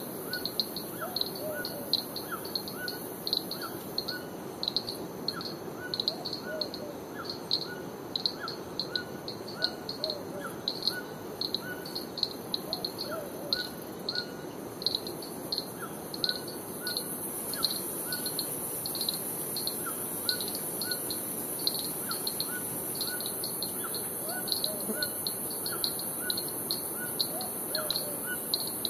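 Tropical montane forest ambience: short high chirps repeating two or three times a second with a lower, slower chirping call, over a steady very high insect hiss that grows louder a little past halfway, and a low steady rush.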